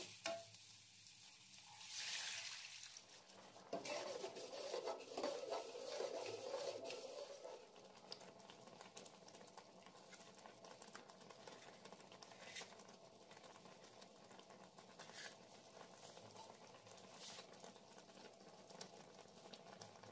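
A metal spoon stirring soya chunks in a steel kadai, with a louder stretch a few seconds in as water goes into the hot pan. The gravy then simmers faintly, with occasional light clinks.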